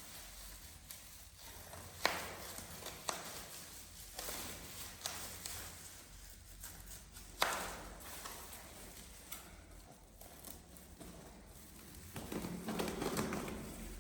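A few sharp knocks or taps at irregular intervals, the loudest about two seconds in and about seven seconds in, followed near the end by a stretch of rustling or shuffling.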